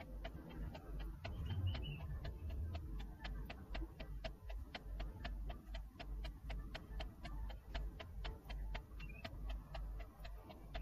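Rapid, even ticking, about four ticks a second, over a steady low hum.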